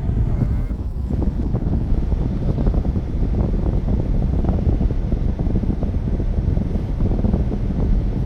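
Wind buffeting the microphone of a moving vehicle over a steady low road rumble.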